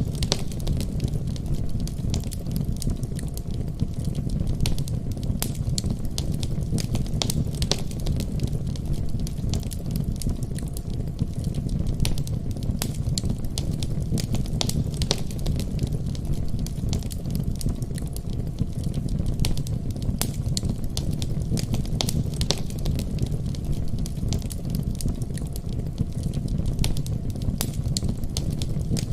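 Wood fire burning in a fireplace, crackling with many sharp irregular pops over a steady low rumble.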